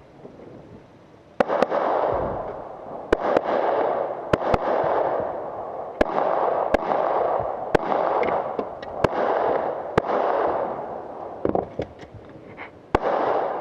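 Pistol shots fired mostly in quick pairs, about sixteen shots starting about a second and a half in, each pair followed by a long echoing rumble.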